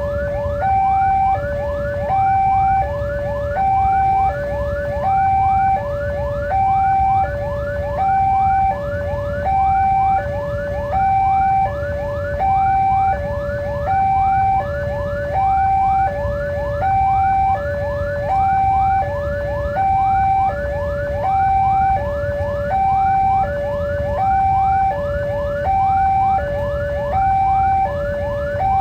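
Electronic railway level-crossing warning alarm sounding continuously: a high-low two-tone signal repeating about every second and a half, with quick rising chirps layered over it and a steady low rumble beneath.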